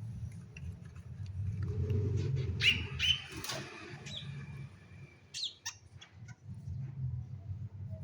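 A long-tailed shrike flutters its wings and gives a few short, sharp calls around three and five and a half seconds in, over a low steady rumble.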